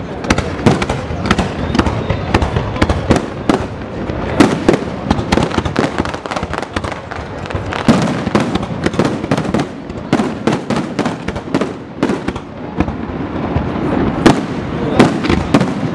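Aerial fireworks display: shells bursting overhead in a rapid, unbroken run of bangs and crackles, several a second.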